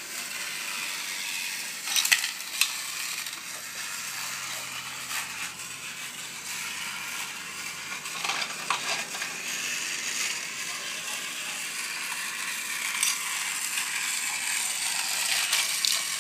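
Battery-powered TOMY Thomas & Friends Big Loader toy train running on its plastic track: a steady high whir of the small motor and gears, with scattered sharp clicks and clacks, the loudest a couple of seconds in.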